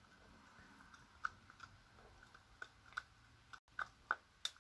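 Faint, irregular light clicks of a wooden stick tapping and scraping against a thin clear plastic cup while working stiff, slow-running resin, more frequent in the second half.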